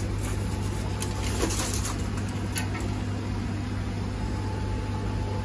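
Steady low mechanical hum of the aquarium room's equipment, with a few short splashes and knocks between about one and two and a half seconds in as a goldfish is netted from the tank.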